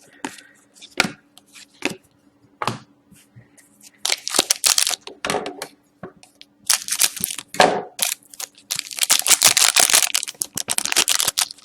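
Foil wrapper of a trading-card pack being torn open and crinkled in several rustling bursts, after a few light clicks of cards being handled.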